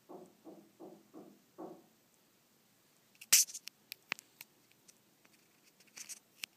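Bengal cat chewing cat grass: five soft, rhythmic chews in the first two seconds, then sharp crisp crunches and clicks, the loudest about three seconds in, and a few more near the end.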